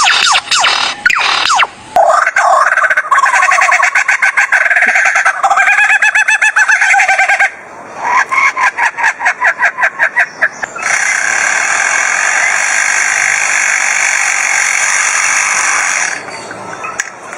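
Bird calls in fast runs of repeated notes, with a short break between two runs. About eleven seconds in they give way to a steady, even hiss-like noise that fades just before the end.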